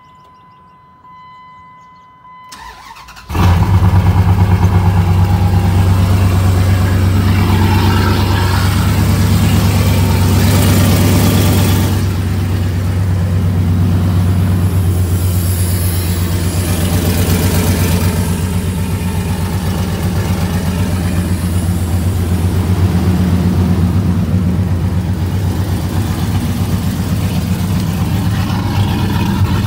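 Car engine cold-started about three seconds in, catching quickly and then running at a steady fast idle that eases slightly about twelve seconds in. The engine has fresh high-zinc oil, and this start is a check for the lifter noise it used to make on cold starts.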